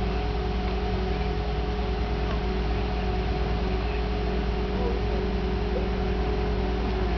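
Diesel engine of a Link-Belt HTC-8650 hydraulic truck crane running steadily at constant speed, with an even low drone, while the crane holds a sailboat aloft in slings.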